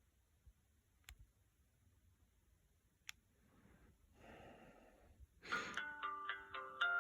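A few faint clicks, then about five and a half seconds in an LG VX6100 flip phone's power-on tune starts: an electronic melody of several stacked notes sounding together, held and stepping in pitch.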